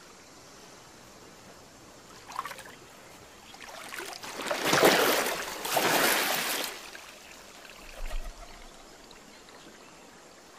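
Water splashing and sloshing as a man is plunged under river water and lifted back out: a baptism by immersion. There are two loud surges of splashing between about four and seven seconds in, with smaller splashes before and after.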